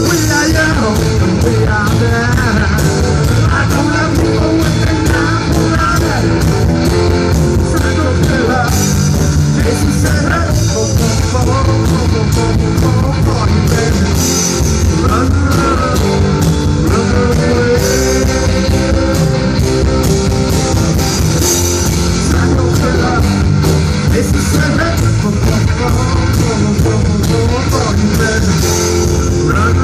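Live rock band playing an instrumental passage, with electric guitars over a drum kit.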